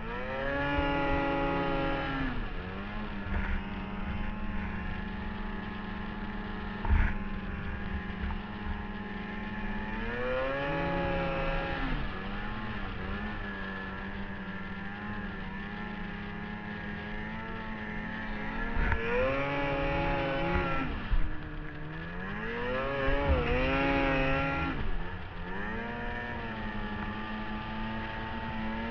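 Snowmobile engine heard from the rider's seat, revving up and easing off with the throttle several times, with steady running between the surges. Two sharp thumps stand out, about a quarter of the way in and again about two-thirds through.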